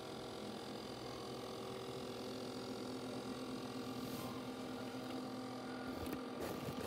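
Steady electrical hum from plugged-in, running disco lights: several even tones held throughout. A few faint handling knocks come near the end.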